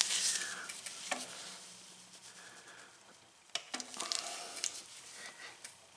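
Metal tools being handled on a bicycle crank: a rustling scrape that fades over the first second, a sharp click about a second in, and a few more sharp clicks past the middle.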